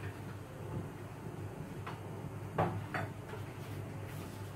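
Steady low hum with three light clicks or knocks about two to three seconds in, from kitchen items being handled on the counter.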